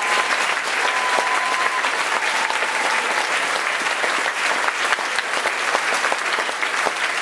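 Crowd applauding with steady, dense clapping.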